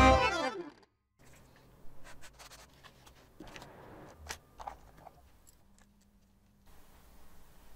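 Background music dying away in the first second, then faint scattered taps, scraping and rubbing as hands handle a handmade miniature building and work at the pieces on its front.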